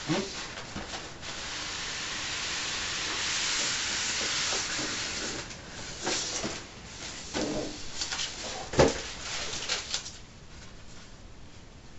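A cardboard model box and its styrofoam packing insert being handled on a wooden table. First a scraping hiss of cardboard and foam sliding lasts a few seconds, then a run of knocks and short foam squeaks follows, with a sharp knock about nine seconds in.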